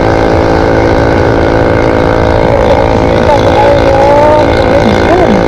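Small motor scooter engine running at a steady pitch while riding, with wind rumble on the microphone.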